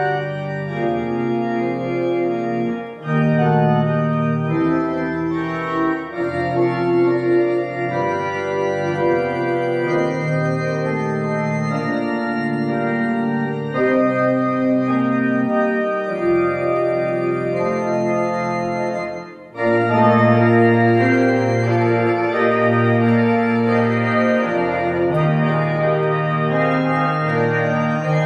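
Organ playing slow, held chords. About two-thirds of the way through the music stops for a moment, then comes back somewhat louder.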